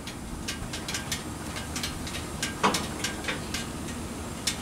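Steak sizzling on a hot flat-top griddle: scattered irregular crackles and pops over a low steady background, with one louder pop a little past halfway.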